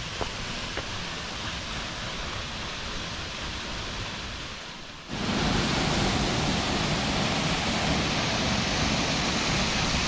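Steady rush of water from a small waterfall and its stream, softer at first. About halfway through it cuts suddenly to a louder, fuller rush of the falls up close, pouring into their plunge pool.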